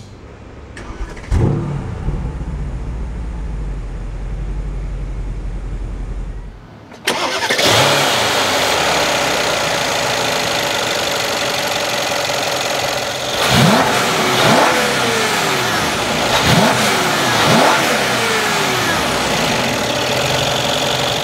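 Mercedes-AMG S63's twin-turbo V8 starting about a second in, flaring briefly and settling to a steady idle. After a cut at about seven seconds it idles louder, with several quick revs in the second half.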